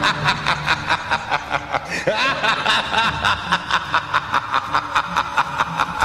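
A person laughing in a long run of quick, even pulses, about five a second, with a brief break about two seconds in.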